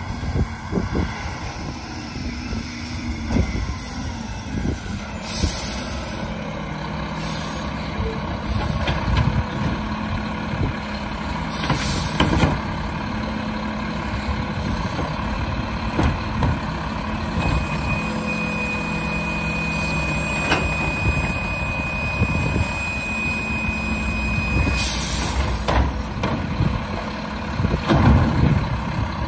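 Mack LEU McNeilus Autoreach garbage truck's diesel engine running, with three short air-brake hisses and scattered knocks and clanks. A steady high tone sounds for about seven seconds in the middle.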